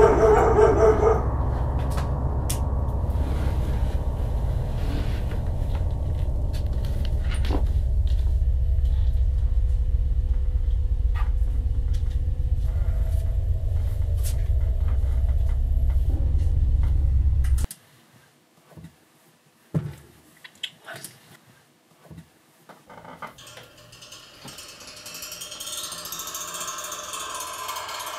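Low, steady rumbling drone that cuts off suddenly about two-thirds of the way through. A few sharp knocks follow in near silence, then a hissing swell rises near the end.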